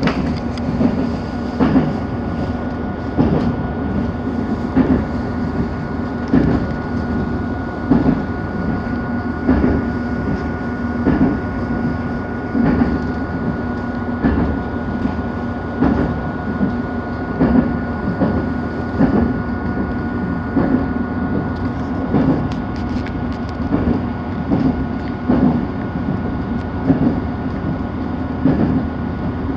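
Wheels of an RA3 diesel railbus clattering over rail joints, heard from inside the car: a steady rolling rumble with a clack about every second and a half. A thin steady whine runs under it and stops about two-thirds of the way through.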